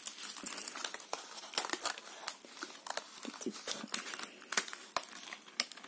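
A card and its clear plastic film being handled and folded, crinkling and crackling in many small, irregular rustles.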